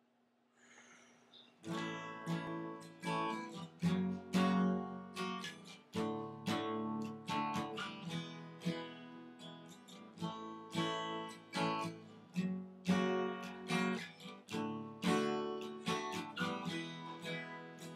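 Acoustic guitar strumming chords as a song's intro, starting about two seconds in after a near-silent moment.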